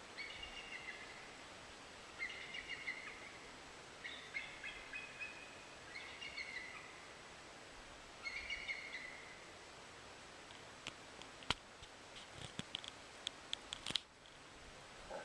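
Eagle chittering: five bouts of high, rapid chattering calls, each about a second long and about two seconds apart. A scatter of sharp clicks follows in the last few seconds.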